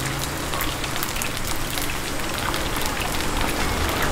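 Chicken pieces deep-frying in a wok of hot oil: a steady crackling sizzle with many small pops.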